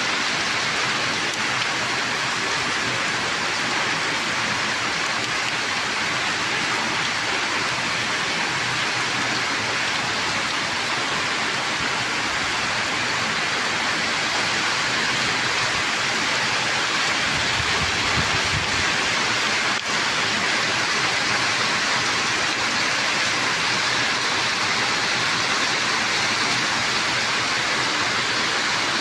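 Heavy rain falling steadily, a dense even hiss with a brief low rumble about two-thirds of the way through.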